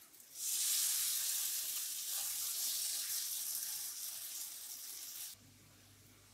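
Spoonfuls of pancake batter sizzling in hot oil in a frying pan, a loud hiss that starts abruptly about half a second in and slowly eases off. It cuts off suddenly near the end, leaving a low hum.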